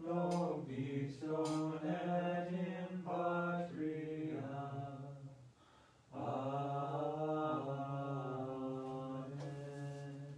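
Low voices singing a slow hymn of the Liturgy of the Hours, holding long notes in two phrases with a short breath about five and a half seconds in.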